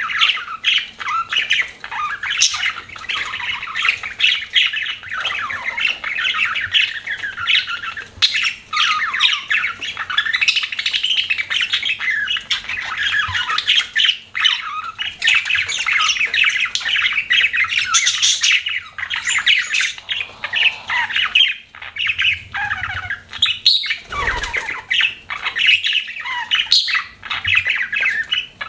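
Budgerigars chattering and chirping continuously, a dense overlapping warble of rapid calls. About two thirds of the way through there is a brief low thump.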